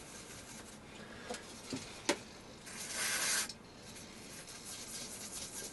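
A short hiss of aerosol engine and parts degreaser sprayed onto a greasy lathe part, lasting under a second, about three seconds in. A few light clicks come before it, and soft brush scrubbing follows.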